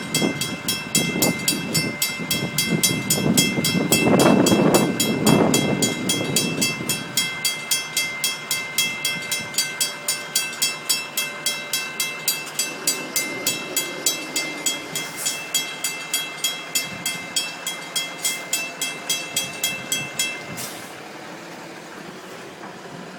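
Railroad crossing bell dinging rapidly and steadily, about three strikes a second, until it cuts off suddenly near the end. Over the first several seconds a passing train rumbles loudest, then fades.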